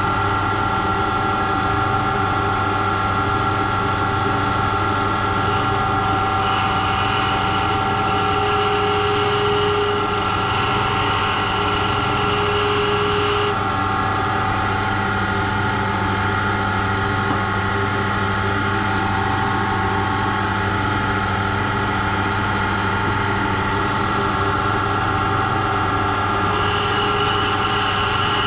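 Valve refacing machine running steadily, its grinding stone refacing an inlet valve. A higher hiss comes in from about six to thirteen seconds in and again near the end.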